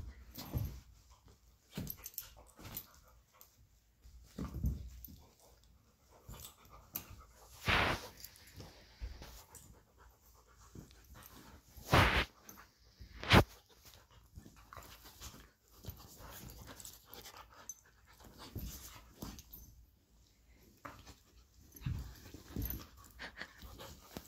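Two dogs play-wrestling: panting and scuffling against a padded dog bed, with a few short, sharp louder sounds around the middle.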